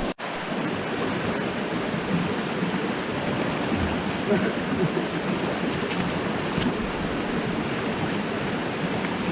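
River water rushing steadily, an even noise of flowing water that cuts out for an instant just after the start.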